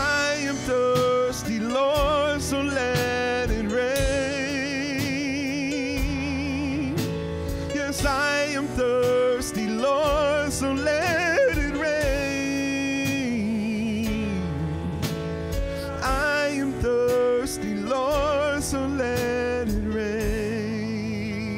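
Gospel worship song: a voice singing with heavy vibrato over sustained electric piano chords and a steady beat.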